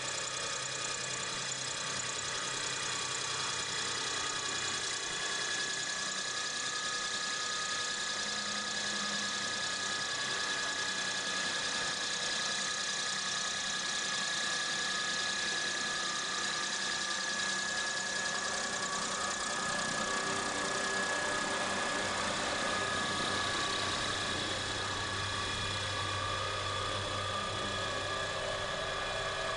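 Scale RC model Sikorsky S-51 helicopter running at low rotor head speed, giving a steady, even whine with several held tones over a constant rushing noise.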